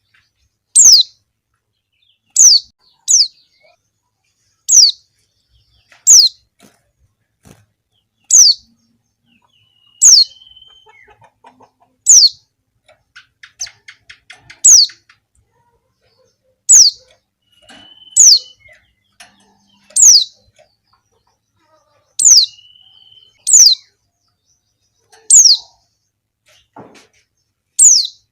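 Female white-eye (pleci) giving short, sharp calls that sweep down in pitch, repeated every one and a half to two seconds, some in quick pairs. A few faint buzzy notes and soft ticks come between them.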